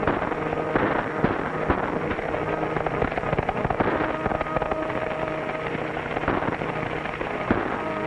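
Horses galloping, with sharp cracks every second or two, over orchestral film music on an old, thin-sounding film soundtrack.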